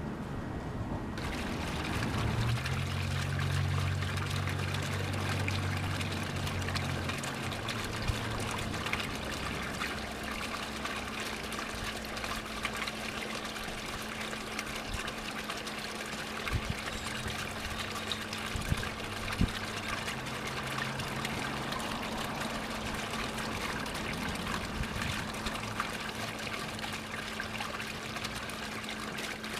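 Small garden-pond fountain splashing and trickling steadily. A low rumble sits under it for the first several seconds, with a few sharp clicks later on.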